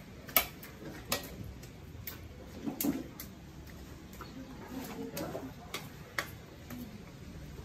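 A stirring utensil clicking and knocking against a steel wok as pork in a thick marinade is mixed, with a few sharp, irregular clicks a second or so apart.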